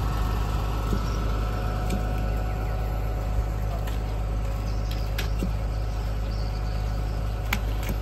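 An engine running steadily, a low even drone with a few short clicks over it.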